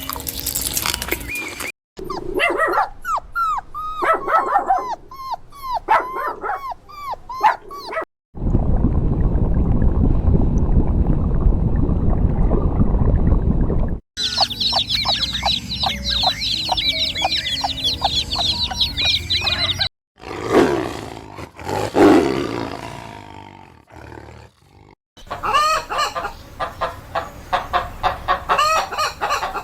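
A string of short farm-animal clips cut hard one after another, about every five or six seconds. Most hold rapid repeated clucking and calls like chickens and other fowl. A stretch of dense low rumbling noise sits in the middle, and a couple of longer falling calls come near the end.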